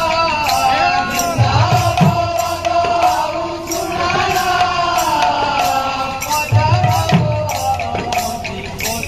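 Odia kirtan music: metal hand cymbals strike a steady beat a few times a second under a wavering melody line, and a barrel drum plays two deep rolls, about one and a half seconds in and again near seven seconds.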